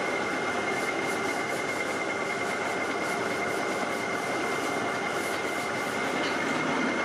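Metal-turning lathe running, spinning a stepped cone pulley in its chuck: a steady mechanical din with a constant high whine.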